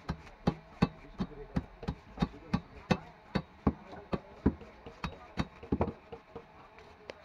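Tilapia being cut on a boti, the fixed upright Bengali fish-cutting blade: sharp, regular chopping knocks about three a second, which stop about six seconds in.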